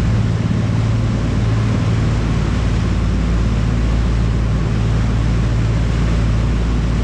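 Tour boat's engine running steadily at cruising speed, a constant low drone, with the wash of the propeller wake churning behind the stern.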